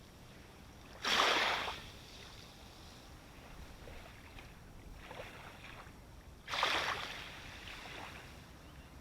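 Small sea waves breaking and splashing close by over a low steady wash: two sharp splashes, about a second in and again some five seconds later, each dying away within a second, with fainter laps in between.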